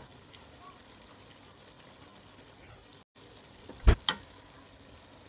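Faint steady sizzle of a pot of sauce on a low flame as par-cooked rice is spooned over it in a layer. About four seconds in, two sharp knocks a fraction of a second apart, a spoon striking the pot.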